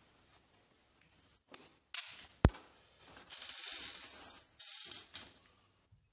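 A single sharp click about two and a half seconds in, then rustling and high-pitched squeaks as a rider climbs onto a motorized bicycle; the engine is not running.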